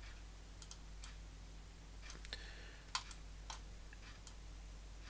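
Computer mouse clicking a handful of times at irregular intervals, the loudest click about three seconds in, over a low steady hum.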